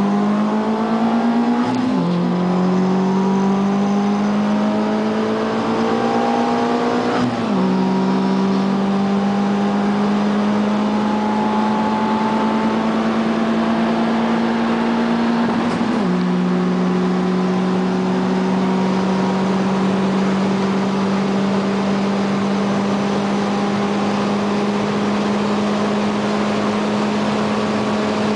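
Renault Clio RS 172's four-cylinder engine heard from inside the cabin under hard acceleration, its pitch climbing through the gears with upshifts about two, seven and sixteen seconds in. After the last shift it runs at a nearly steady, slowly rising pitch.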